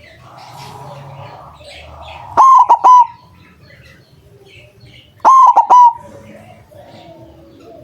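White zebra dove (perkutut) singing its cooing song: two loud phrases of three or four quick rolling coos, about three seconds apart. Faint chirps of other small birds sound in between.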